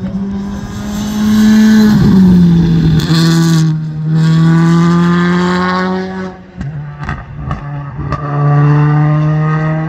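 Rally car engine running hard at high revs, with a sharp drop in pitch about two seconds in. Around two-thirds of the way through it lifts off the throttle with a few sharp pops, then comes back on power.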